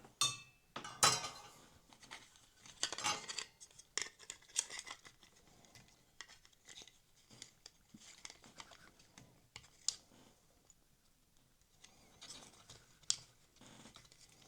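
Small parts of a model locomotive chassis being handled: scattered light clicks, taps and scrapes of plastic and metal pieces, with short quiet gaps.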